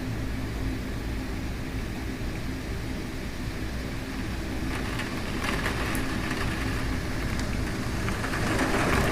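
Severe thunderstorm winds gusting with rain: a steady rumbling rush that grows louder and hissier through the second half.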